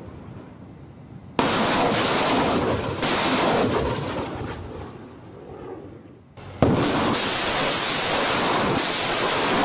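BM-21 Grad 122 mm rockets launching: a sudden loud rushing roar breaks in about a second in, steps up again a moment later as more rockets leave, and fades after a few seconds. A second roar begins just past halfway.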